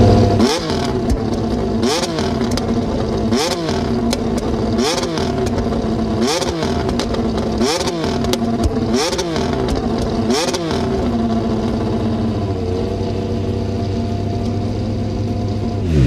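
McLaren MCL36's Mercedes 1.6-litre turbocharged V6 hybrid Formula 1 power unit running on its first fire-up for the 2022 season, blipped about eight times at an even pace, each rev rising and dropping quickly, before settling to a steady idle for the last few seconds.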